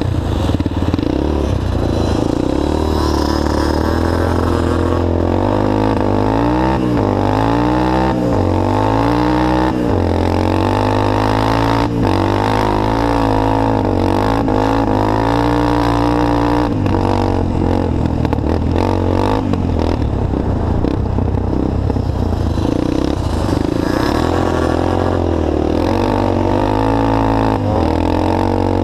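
Three-wheeled ATC's engine heard from on board, running hard, its pitch rising and falling again and again as the rider accelerates and shifts, with a few short knocks from the machine over the rough track.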